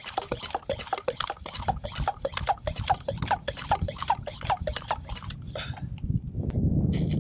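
Hand pump of a plastic garden pressure sprayer being worked in quick strokes, about three a second, each with a short rising note, building air pressure in the tank before spraying. The pumping stops about six seconds in and a louder low rushing noise takes over.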